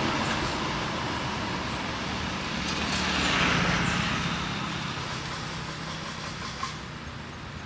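A motor vehicle passing, its engine noise swelling about halfway through and then fading away.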